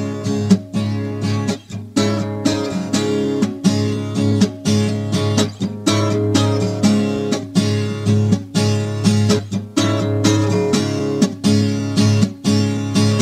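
Acoustic guitar strummed in a steady rhythm, chord after chord with sharp, regular attacks: a song's instrumental opening with no voice yet.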